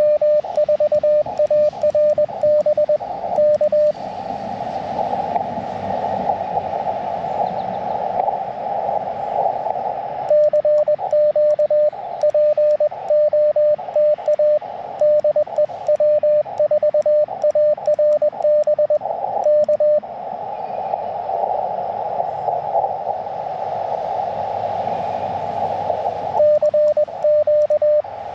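Elecraft KX2 transceiver's Morse code (CW) audio on the 30-meter band: a steady tone near 600 Hz keyed in dots and dashes. It gives way twice to several seconds of band hiss heard through the radio's narrow CW filter, about 4 s in and again about 20 s in.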